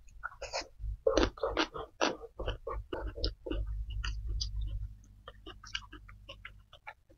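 Close-miked chewing and mouth sounds of a person eating food by hand: quick wet, clicky smacks, densest from about a second in, thinning to scattered clicks after about four seconds.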